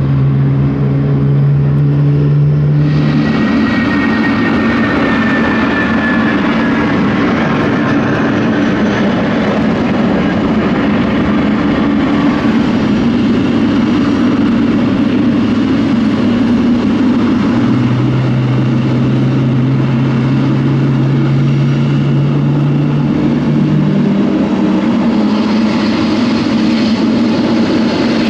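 Jet engines of a Boeing 777, a loud, steady roar with low tones underneath and a high whine that falls in pitch a few seconds in.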